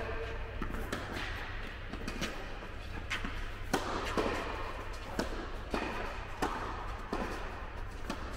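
Tennis rally in an indoor hall: sharp echoing pops of racket strikes and ball bounces, about one every half-second to second, over a low steady hum.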